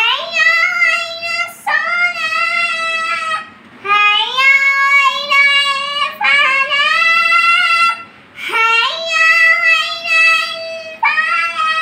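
A young boy chanting the azan, the Islamic call to prayer, solo, in long drawn-out phrases that slide and bend in pitch, with short pauses for breath between them.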